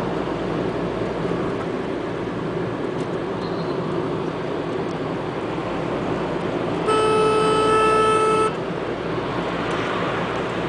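Steady road, tyre and engine noise heard inside a car's cabin at highway speed. About seven seconds in, a vehicle horn sounds once, a steady single-pitched blast lasting about a second and a half, louder than the road noise.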